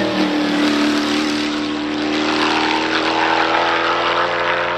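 Arrinera Hussarya GT3's 6.2-litre LS3 V8 pulling hard as the race car goes by at speed, its steady note falling slightly in pitch as it passes.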